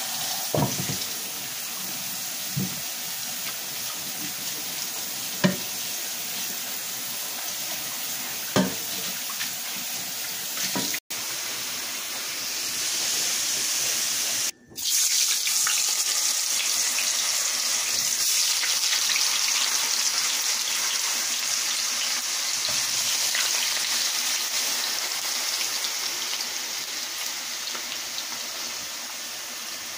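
Kitchen tap running into a sink while a pan is washed, with a few sharp knocks of dishes. About eleven seconds in, after a cut, it gives way to potato strips frying in a pan of hot oil, a steady sizzle.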